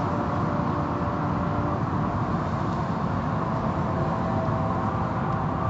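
Automatic car wash running: a steady rush of water spray and machinery with a few faint steady hums, heard from inside the car.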